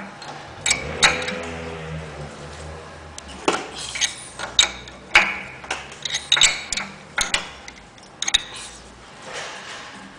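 Wrench clinking and knocking against the brass fittings of a carpet-cleaning truckmount's chemical pump while the 5/8 nipple is loosened: a string of irregular sharp metal clicks and clanks.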